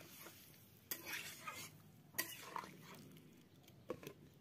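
Faint scraping of a metal spatula stirring a thin, watery curry in a steel kadai, with three sharp metal-on-metal clinks: about a second in, a little past two seconds, and near the end.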